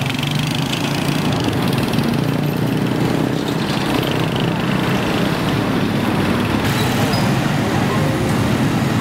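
Steady street traffic: vehicle engines running continuously, with no single vehicle standing out.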